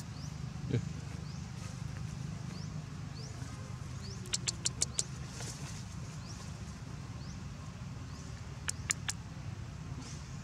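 Outdoor forest ambience with a small high chirp repeating about every 0.7 seconds, each one rising slightly. A quick run of five sharp clicks comes about four seconds in, and three more near the end.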